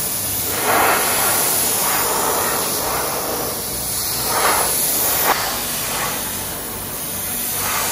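Paint spray gun hissing as candy paint is sprayed on in passes to deepen the colour, the hiss swelling and easing several times.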